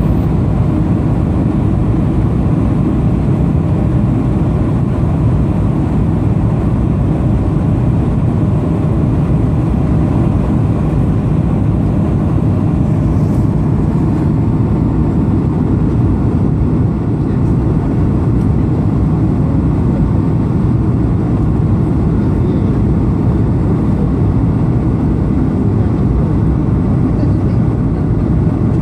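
Steady cabin noise inside an Airbus A220-300 airliner in flight: an even low rush of airflow and engine noise from its Pratt & Whitney PW1500G geared turbofans.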